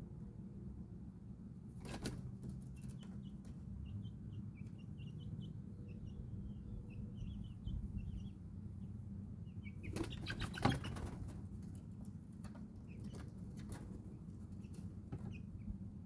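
Baby chicks peeping in short, repeated high chirps, with two bursts of sharp rustling and scratching, one about two seconds in and a louder one around ten seconds in, over a steady low background hum.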